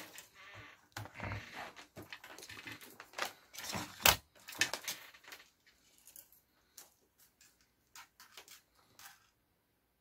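Handling noise of a bare nichrome heating-element wire from a hair dryer and a multimeter's test leads: light metallic clicks, taps and rustling. It is busy at first, with one sharper click about four seconds in, then thins out to scattered ticks.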